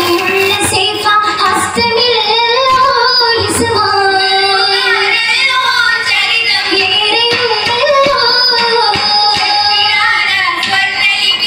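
Oppana song, a Mappila song with musical accompaniment, sung by a woman's voice and children's voices.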